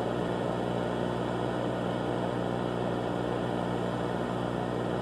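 Steady, unchanging droning hum mixed with a hiss of noise, a constant background bed under the stand-by pause of a mock emergency broadcast.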